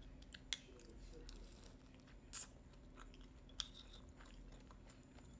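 Faint chewing of a pan-fried dumpling, with a few short clicks.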